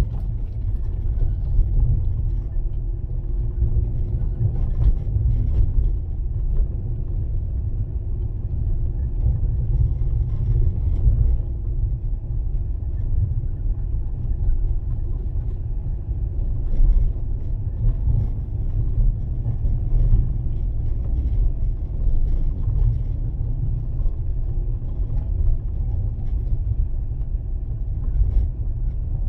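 Fiat Panda 4x4 driving on a snow-packed road, heard from inside the cabin: a steady low rumble of engine and tyres, with occasional light knocks.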